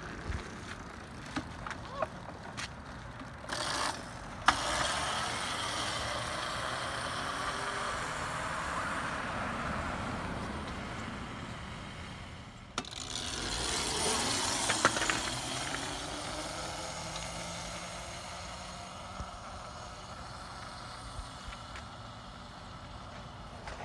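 Razor MX650 electric dirt bike riding on a concrete sidewalk: a steady whir from its chain-driven motor and tyres, with some knocks and clicks in the first few seconds, growing fainter in the later part.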